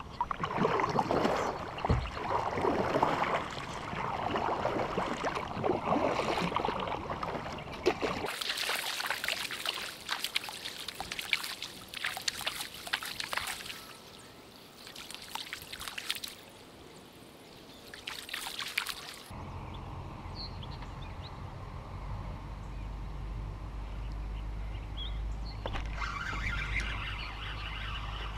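Kayak paddling: paddle blades dipping and water trickling and splashing off them, with water sloshing against the hull. A steady low rumble sets in about two-thirds of the way through.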